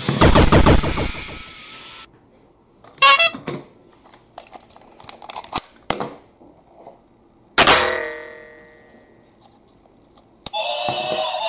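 A battery-powered toy train's electronic sound stops about two seconds in. Then come plastic clicks and knocks as AA batteries are fitted into its battery box, including one sharp clack with a short ring in the middle. Near the end the toy switches on and starts a steady electronic tune.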